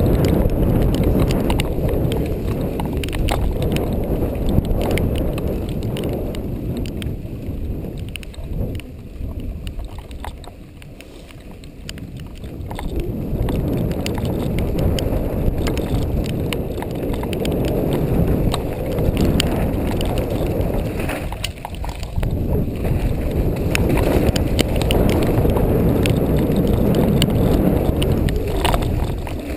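Mountain bike riding over a trail: a steady rumble of tyres and wind on the GoPro's microphone, with scattered clicks and rattles from the bike. It eases off for a few seconds about a third of the way in, then builds again.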